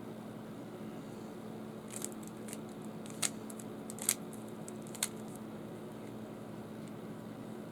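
Plastic Rubik's Cube being turned and handled: a cluster of sharp clicks over about three seconds, three louder ones roughly a second apart, over a steady low hum.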